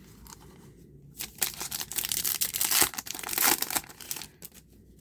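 A foil trading-card pack wrapper being torn open and crinkled, a dense crackling from about a second in until near the end.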